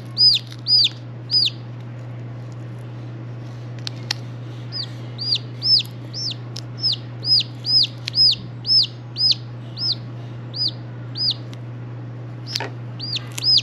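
A two-day-old chick peeping loudly and insistently, a racket of high peeps at about two a second, each rising and falling in pitch, in runs with short pauses. The loud, repeated peeping of a chick alone in its bin is the call of a chick in distress. A steady low hum runs underneath.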